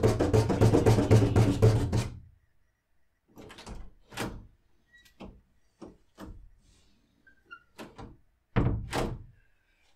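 Rapid, loud knocking on a door, about seven knocks a second, that stops about two seconds in, followed by a few scattered, quieter thuds and knocks.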